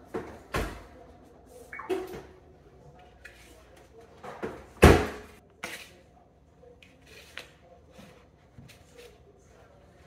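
A microwave oven door shutting with a knock, followed by more kitchen knocks, the loudest about halfway through, and then soft rustling as a paper towel is pulled off a microwaved burger on a paper plate.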